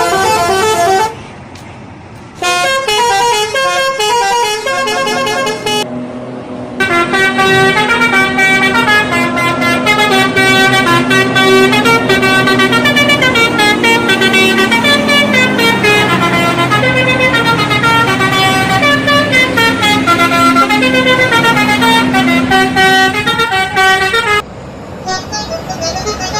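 Telolet horns of Indonesian buses: multi-note air horns playing quick, melodic runs of rising and falling tones, almost without a break. After a short lull about a second in, the horn playing continues loudly, easing off near the end.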